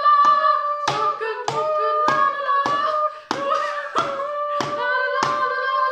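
A round cheese box used as a toy drum, beaten with a wooden spoon in a steady beat of about one and a half knocks a second, under a wordless voice humming a tune of held notes that step in pitch.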